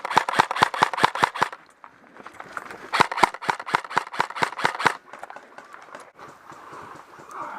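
Airsoft gun firing in two rapid bursts of sharp clicks, about eight shots a second: one at the start lasting about a second and a half, the other from about three seconds in for about two seconds.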